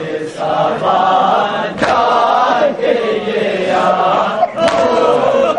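Men's voices chanting an Urdu nauha (Shia lament) together, led by a reciter. Two sharp hits cut through, about two seconds and four and a half seconds in.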